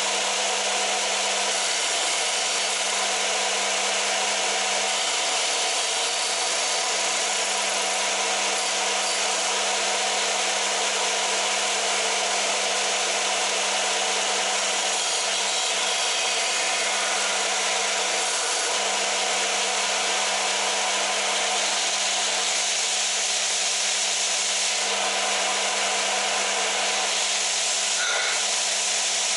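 Warrior W0506 combination belt-and-disc sander running steadily, a motor hum under the rush of the spinning belt and disc, while a wooden board is sanded against the disc and, near the end, the belt.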